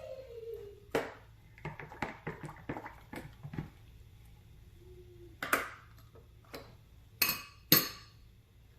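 A spoon and dishes clinking and knocking while lemon juice is measured out by the tablespoon. A run of light taps comes first, then three sharper, louder clinks near the end.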